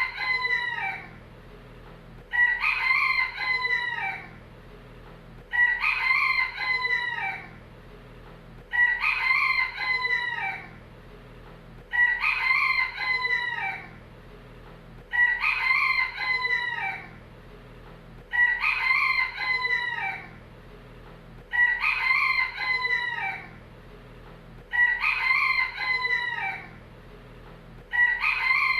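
Rooster crowing, the same cock-a-doodle-doo repeated about every three seconds, each crow lasting about two seconds, over a faint steady low hum.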